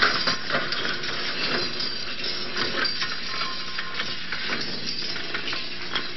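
Continuous, irregular clattering and banging of metal, with cracking impacts, from a fully loaded chairlift running away in reverse out of control, its chairs crashing into the terminal machinery. A sharp hit comes right at the start.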